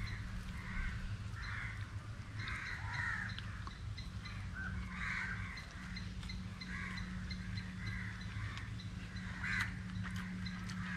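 Crows cawing again and again, over a steady low hum.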